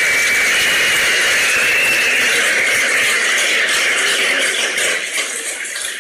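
Large audience applauding steadily, dying down about five seconds in.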